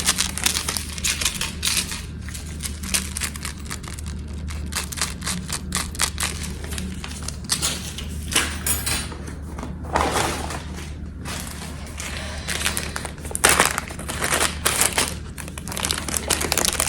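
Plastic packaging being handled and unwrapped: irregular rustling and crinkling with scattered clicks and taps, over a steady low hum.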